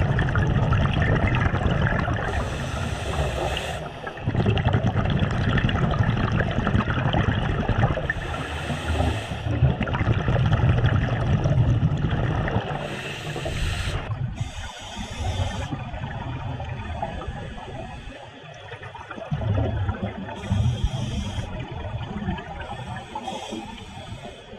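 Scuba breathing heard underwater: a short regulator hiss on each breath in, then a low bubbling rush of exhaled bubbles, repeating every five seconds or so.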